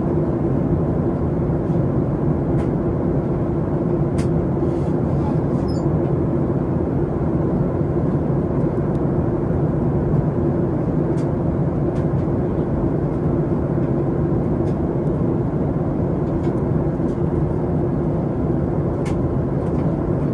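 Cabin noise inside a Boeing 737 MAX 8 airliner: the steady rumble of its CFM LEAP-1B turbofan engines and the airflow, with a steady low hum and a few faint ticks.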